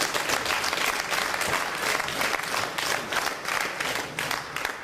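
Audience applauding, a dense clapping that thins out near the end.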